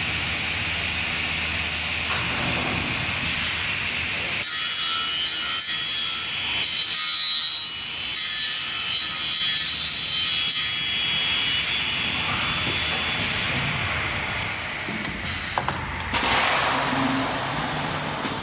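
Corner cleaner of an URBAN welding and corner cleaning line machining the welded corner of a PVC window frame. A steady machine hum gives way, about four and a half seconds in, to loud scraping and milling of the weld seam with a high, hissing rasp lasting about six seconds. The head then moves more quietly before another stretch of scraping near the end.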